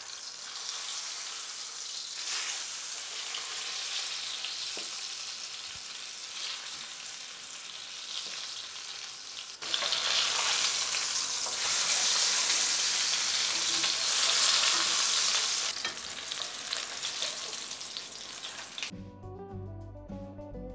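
Flour-dredged bonito fillets frying in shallow hot oil in a pan: a steady crackling sizzle that turns louder about ten seconds in. Near the end the sizzle stops and music takes over.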